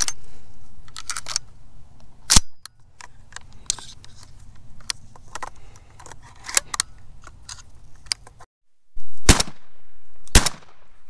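Shotgun shells being pushed into a semi-automatic shotgun's magazine through the loading port, a series of sharp metallic clicks. Near the end come two loud shotgun shots about a second apart, each ringing on briefly.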